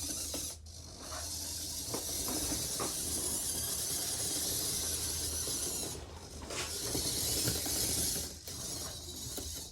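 Small electric drive motors and plastic gearing of a 1:32 Siku Control radio-controlled model running with a high hissing whine, stopping briefly about half a second in, around six seconds in, and again about eight and a half seconds in.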